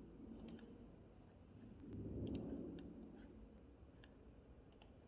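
Faint computer mouse clicks: two in quick succession near the start, a couple of single clicks in the middle and another quick pair near the end. There is a soft swell of low noise about two seconds in.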